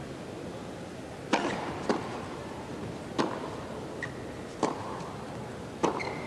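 A tennis rally on an indoor carpet court: a tennis ball struck by rackets and bouncing, heard as five sharp knocks spread over about five seconds against a steady arena hush.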